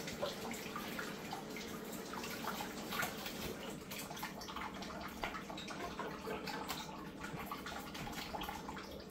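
Kitchen faucet running into a sink while dried chiles are rinsed by hand under the stream, with frequent small irregular splashes and drips.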